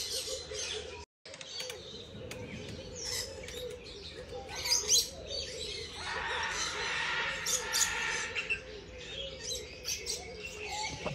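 Birds chirping and tweeting, with many short high calls, a few louder ones around five seconds in, and a brief dropout about a second in.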